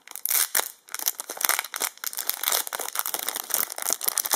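Foil booster pack wrapper crinkling as it is handled and torn open: a rapid, irregular run of crackly rustles.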